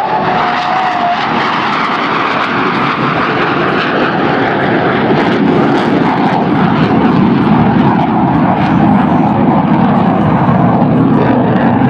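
Jet noise from two Lockheed F-104 Starfighters' J79 turbojets in a formation pass. A whine falls in pitch over the first second as the jets go by, then a steady, loud rushing noise follows as they fly away.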